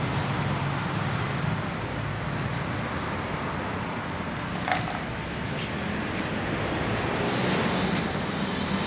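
A steady machine drone, with a couple of faint clicks about halfway through.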